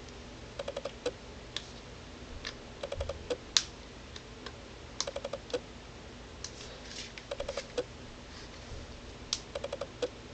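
Faint little clusters of quick plastic clicks and taps every second or two, from fingers working at the side of a Palm Pre Plus phone while feeling for the charging port under its small flap door.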